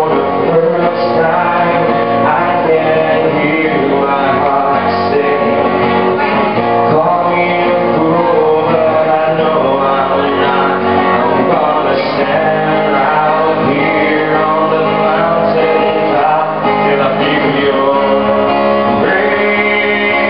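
Live music: a man singing to his own guitar accompaniment.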